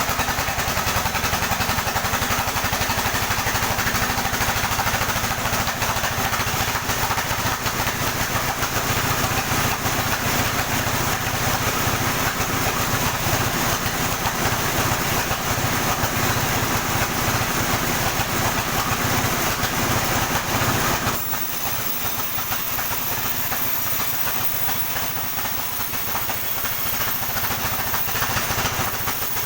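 Sawmill running while a coconut palm log is sawn: steady machine noise with a deep rumble and a high hiss. A little over two-thirds of the way through, the deep rumble drops off suddenly and a quieter hiss carries on.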